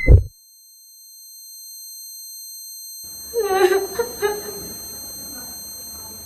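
A short, loud low boom at the very start, then an eerie horror-score drone of thin, steady high tones swelling in over a low hum. About three seconds in, a woman's voice gives a few short cries.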